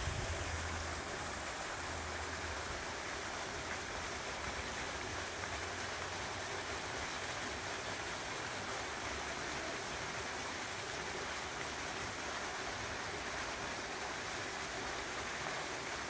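Thin waterfall pouring down a rock face in a ravine: a steady rush of falling and splashing water, with a low rumble during the first second or two.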